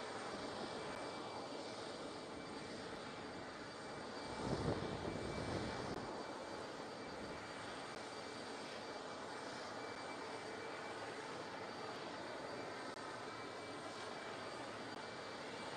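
Steady jet turbine noise from the parked Antonov An-124 cargo plane: an even rushing rumble with a thin high whine over it. A louder swell of low rumble comes about four and a half seconds in and fades by six seconds.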